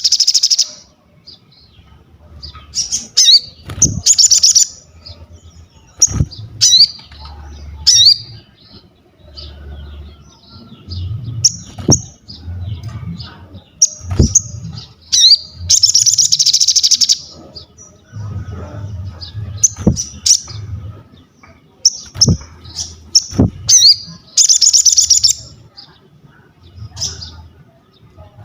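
A sogon, an Indonesian kept songbird, singing loud, rapid chattering phrases of high notes, repeated every second or two, with sharp clicks in between.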